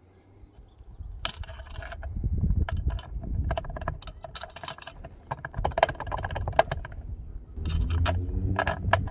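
Light metallic clicks and clinks of a bolt and nut being fitted by hand into an aluminium awning bracket on a unistrut roof rail, scattered irregularly over a low rumble.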